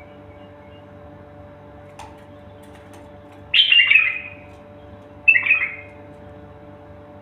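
A songbird giving two short, loud bursts of chirping song about three and a half and five and a quarter seconds in, over a steady low hum.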